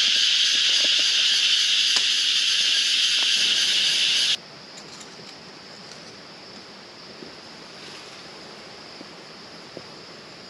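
Steady, loud, high-pitched hiss of rainforest ambience. About four seconds in it cuts off abruptly to a much fainter steady hiss, as at an edit.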